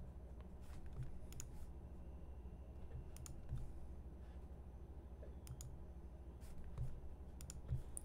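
Faint, scattered clicking at a computer, about a dozen sharp clicks at irregular intervals as the screen is scrolled, over a low steady hum.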